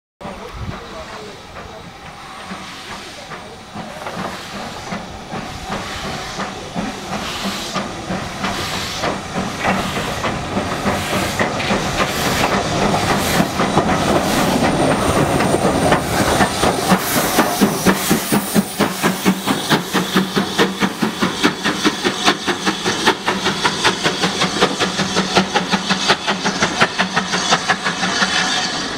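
Steam locomotive hauling a train, heard from the carriage behind it: steam hiss and exhaust chuffs that grow louder over the first half, then settle into a quick, regular beat.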